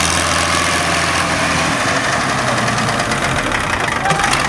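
Ford 8000 tractor's six-cylinder diesel engine running steadily at low revs.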